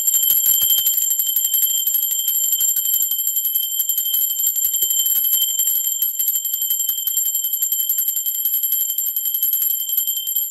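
Small bell rung rapidly without a break: a fast stream of clapper strikes over a high, bright ringing tone.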